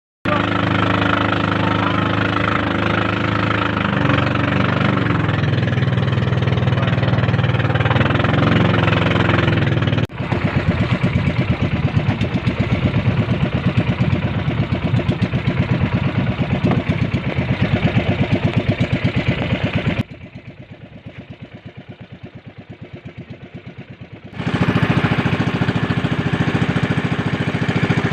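Motorboat engine running steadily, its pitch shifting a little about four seconds in. About ten seconds in it changes to a fast, even throb. Near two-thirds through it turns quieter and duller for a few seconds, then comes back loud.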